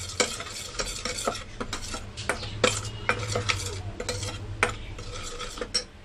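Steel spoon stirring dry turmeric powder and pan chunam in a stainless steel bowl, scraping and clinking irregularly against the bowl with a faint metallic ring. The stirring stops just before the end.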